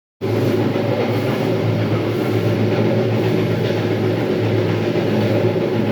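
Electric terrazzo grinder running steadily, grinding a floor: a loud, even motor hum over a constant grinding rush.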